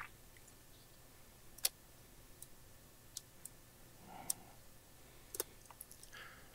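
About eight faint, sharp clicks and ticks at irregular intervals, the sharpest about a second and a half in, from small metal parts being handled: the cassette deck's pinch roller spring being bent around a gauge pin to set the pinch roller pressure.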